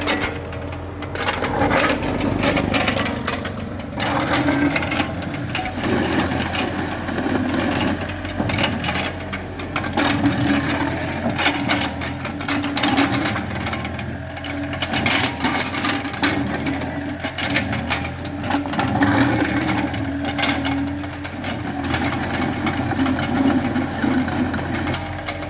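Excavator at work: its diesel engine runs steadily with a low hum and a wavering drone, under dense, irregular clattering and knocking.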